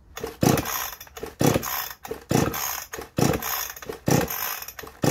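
Recoil starter rope of a cold Chinese 45cc two-stroke chainsaw being pulled about five times, roughly once a second, each pull a rasping zip, without the engine catching.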